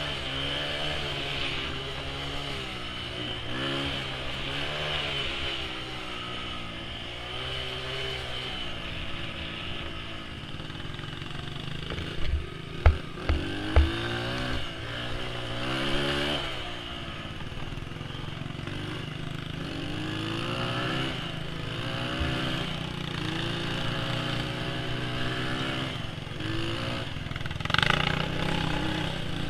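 Honda dirt bike's engine revving up and down over and over as it is ridden along a rough trail. A few sharp knocks come about twelve to fourteen seconds in.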